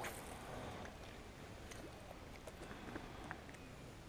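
A few faint, short clicks and handling noises as a just-landed shad is taken in hand and unhooked, over a low steady background hiss.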